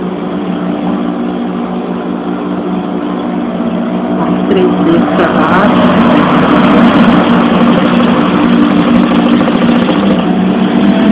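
Industrial sewing machine motor humming steadily, growing louder and busier with rapid ticking from about four and a half seconds in as the machine stitches through the fabric.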